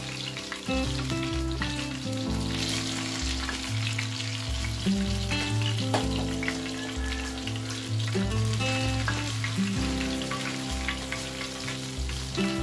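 Fish pieces sizzling as they shallow-fry in hot oil, with a spatula scraping and lifting them from the pan; the fish is cooked through and being taken out. Background music with a steady bass line plays over it.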